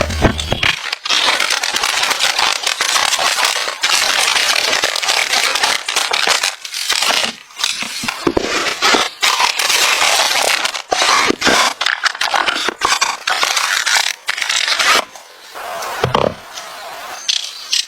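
Crunching and crackling of stiff material being handled or crushed, in irregular stretches broken by short pauses, dropping away about fifteen seconds in.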